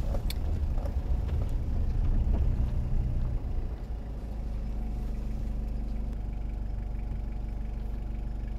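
A car engine running with a low hum, louder and more uneven for the first three or four seconds, then settling into a steady drone.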